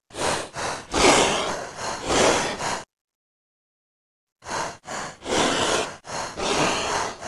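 Designed creature sound effect for a wyvern: a run of about four short, breath-like huffs, a second and a half of silence, then another run of about five.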